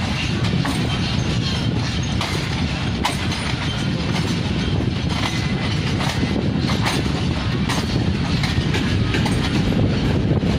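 Passenger train rolling past: a steady rumble of coaches, with the wheels clicking over rail joints many times.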